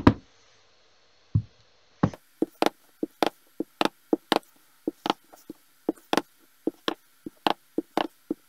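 Clear acrylic stamp block knocking down on an ink pad and onto card stock: two single knocks, then from about two seconds in a quick, even run of light knocks, nearly four a second, as the stamp is re-inked and pressed again and again.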